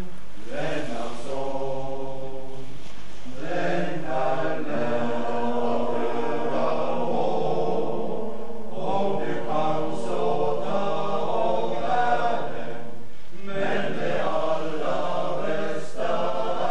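Soundtrack music of voices singing long held, chant-like notes in phrases of a few seconds, with short breaks between them.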